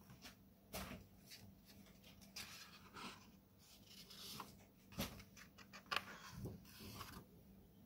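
Pages of an old paper-wrapped book being opened and turned by hand: faint rustling of paper with a few soft taps, the sharpest a little before the end.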